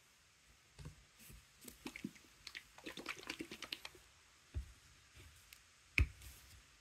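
Small craft items being handled on a cutting mat: a run of light clicks and rattles, then a dull knock and, about six seconds in, a sharper, louder knock as something is set down on the table.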